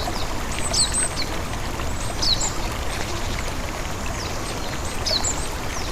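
Small waterfall with little water running, giving a steady trickling rush, with several short, high bird chirps that slide downward in pitch.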